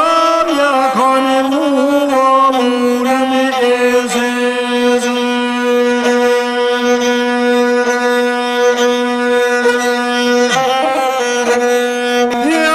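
Albanian lahuta, a single-string bowed folk fiddle, accompanying a man singing in a traditional epic style. A long steady note is held through the middle, and the voice bends and wavers in pitch near the start and again near the end.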